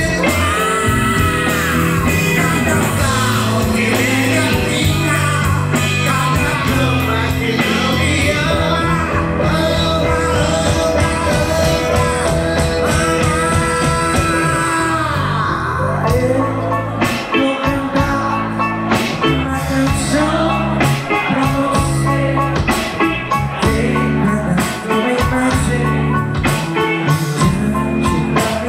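Live MPB band playing: vocals over keyboard, guitars, bass, drums and percussion. About halfway through the voice drops out and the band plays on with busy drums and percussion.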